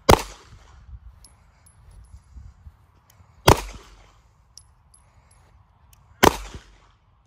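Smith & Wesson M&P Shield Plus pistol fired three times, about three seconds apart, each sharp shot trailing off in a short echo.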